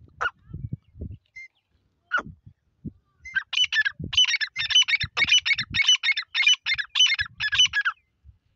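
Grey francolin calling: a fast run of harsh repeated phrases, about three a second, starting about three seconds in and lasting some four and a half seconds. Before it come two short notes sliding down in pitch.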